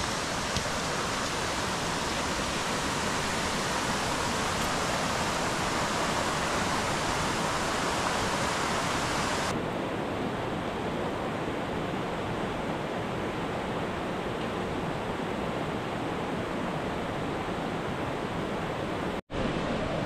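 Steady rush of a mountain stream tumbling over granite ledges. About halfway through the sound changes abruptly to a duller rush with less hiss, and it drops out for an instant near the end.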